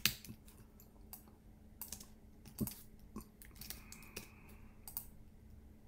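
Computer keyboard typing and clicks, short and irregularly spaced, with a faint steady hum underneath.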